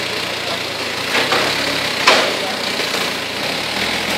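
Toyota 3.5-ton forklift with a bale clamp, its engine running steadily as it drives and turns, with a sharp knock about two seconds in.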